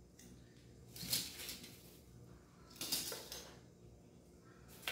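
Packaging being handled: two brief, quiet rustles, about a second in and about three seconds in, and a sharp click at the end.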